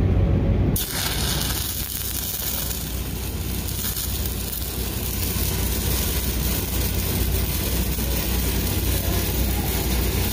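A 6010 stick-welding arc strikes suddenly about a second in, then burns steadily with a dense hiss as a downhill root pass is run on steel pipe. A low engine hum runs underneath.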